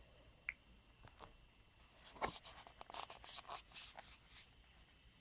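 Faint scratching and rubbing handling noise: a light tick, then a quick run of short scratchy strokes a couple of seconds in, as a phone is handled.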